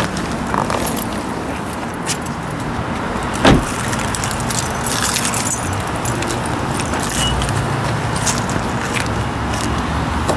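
A 2003 Toyota Camry's car door shutting with one thump about three and a half seconds in, over a steady low hum and light key jingling.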